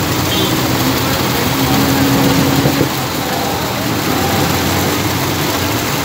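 Demonstration centrifugal water pumps running, their discharge pipes pouring water into open steel tanks: a steady, loud rush of gushing, splashing water over the hum of the machines.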